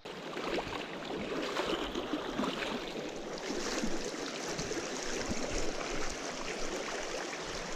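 Shallow stream water rushing steadily over a rocky riffle.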